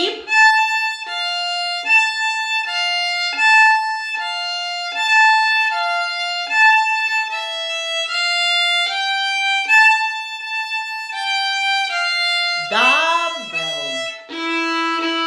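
Solo violin playing a quick passage of short, separate bowed notes, mostly rocking back and forth between two pitches. Near the end a voice breaks in briefly, then the playing resumes on a lower note.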